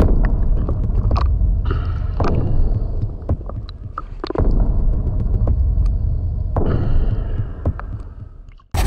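Underwater camera sound: a low, steady rumble of water moving around the housing, with scattered clicks and crackles. It fades toward the end and cuts off abruptly.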